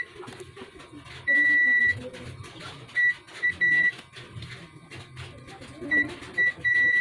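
Multimeter continuity beeper giving about eight high, steady beeps of uneven length. The longest lasts about half a second a little over a second in, and the rest come in short clusters. It sounds each time the probes touch across a low-resistance point on an LED TV T-con board, as it is checked for shorted capacitors.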